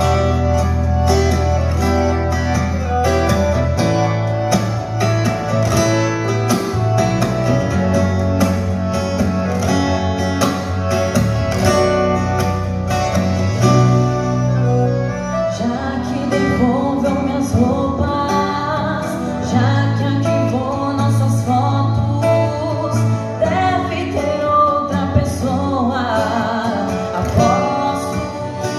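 Live sertanejo music: a steel-string acoustic guitar played with a woman singing into a microphone, amplified through PA speakers.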